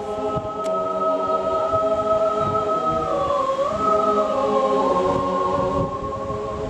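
Mixed choir singing a cappella in held chords, the harmony shifting about three seconds in. Wind buffets the microphone throughout.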